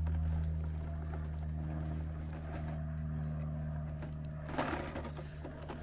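Electric motor and geared drivetrain of a 1/10-scale Element RC Enduro Trailrunner crawler giving a steady low hum as it crawls slowly over rocks, with a short burst of noise about four and a half seconds in.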